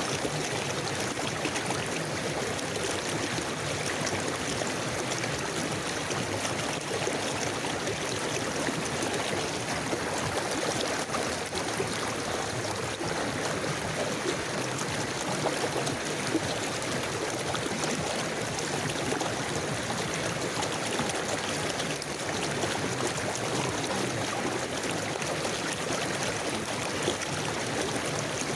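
River water flowing over stones in a steady, even rush with a bubbling, trickling texture.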